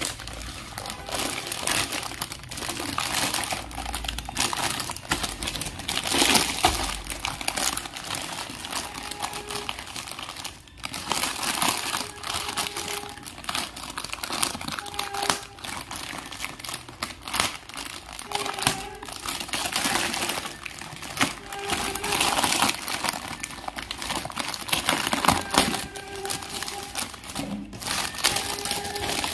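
Clear plastic packaging bag and its paper header card crinkling and rustling in uneven bouts as they are handled and pulled off a plastic toy truck.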